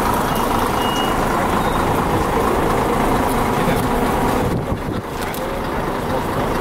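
Coach bus's diesel engine idling close by, a steady rumble that dips briefly about four and a half seconds in.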